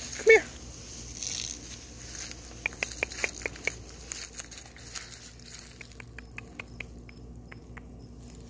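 White-tailed deer grazing in tall grass: a run of small sharp snaps and tearing as it crops the stems. A short voice-like sound just after the start is the loudest moment.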